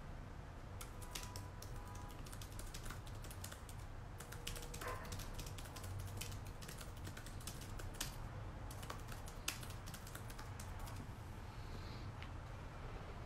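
Typing: quick, irregular key clicks and taps, coming in short runs with gaps, over a faint low hum.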